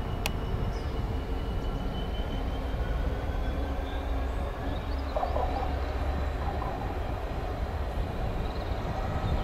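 Class 66 diesel locomotive's two-stroke EMD V12 engine running steadily as it creeps forward, with a faint thin squeal from the wheels on curved track and a single click about a third of a second in.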